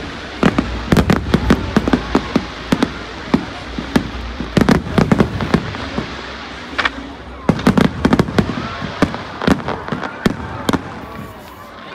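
Aerial fireworks shells bursting in quick, irregular succession: many sharp bangs and crackles overlapping, thinning out a little near the end.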